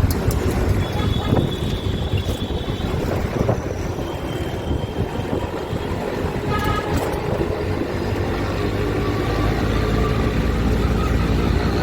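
Busy street traffic noise: motor vehicle engines running with a steady low rumble, and a few short high tones and clicks over it.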